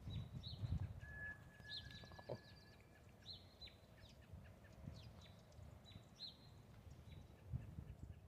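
Faint outdoor ambience with a small bird chirping every second or so, short sharp chirps, over low thumps of footsteps.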